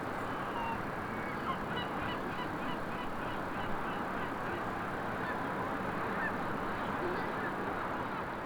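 Birds calling: a quick run of short honking calls, a few a second, over a steady hum of outdoor ambience.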